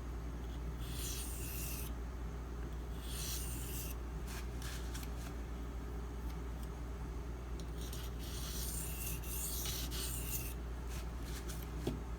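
An SG2 (Super Gold) steel knife blade stroked across a Shapton Pro 1000-grit whetstone, rasping and scraping. There is one stroke about a second in, another near three seconds, a few short scrapes, then a longer run of strokes around eight to ten seconds. A steady low hum runs underneath.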